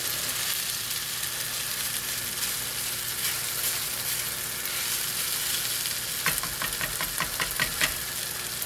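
Frozen shrimp and chicken fried rice sizzling steadily in a hot pan. About six seconds in comes a quick run of about ten sharp clicks lasting under two seconds.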